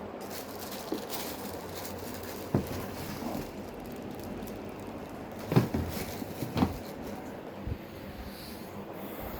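Parts of a wet and dry vacuum cleaner being handled: a few scattered knocks and clicks, the two loudest about a second apart midway, over a steady background hiss.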